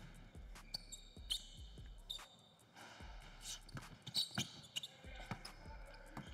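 Basketball being dribbled on an indoor hardwood court: a regular run of bounces about two a second, with a few short, sharp sneaker squeaks on the floor.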